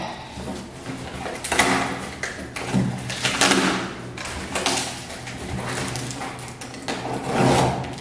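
Clear packing tape being peeled and torn off a cardboard box, with the cardboard flaps and a plastic sleeve rustling, in a handful of irregular scratchy rips and crackles.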